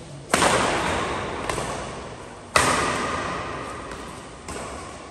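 Badminton rally: rackets hitting the shuttlecock, two loud hits about two seconds apart, each ringing and echoing in a large indoor hall, with fainter hits from the far end of the court in between.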